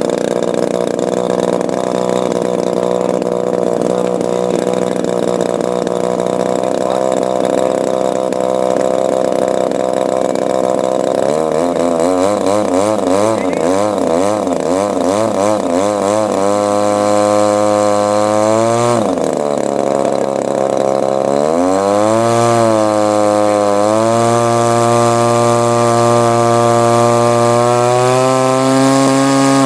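Engine of a large radio-controlled model warplane running on the ground, held back by hand. It idles steadily, then from about twelve seconds in is run up to higher rpm, with two sharp dips and climbs back, and one more dip at the very end. This is a pre-flight ground run-up.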